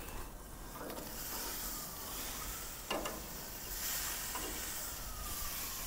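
Steaks sizzling on a hot grill after being flipped: a steady hiss, with one sharp click about three seconds in.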